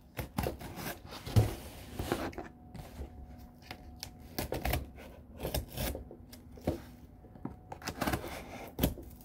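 Scissors cutting through packing tape on a cardboard box: irregular clicks and scrapes as the blade slices and catches along the taped seam.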